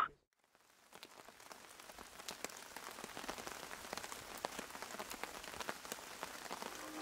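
Steady rain with many small drops pattering and dripping off the edge of a shelter's fabric. It fades in from silence about a second in and grows slightly louder.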